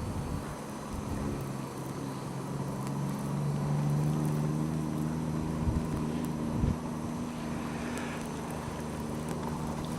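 An engine running with a steady hum that grows louder to about four seconds in and then slowly fades.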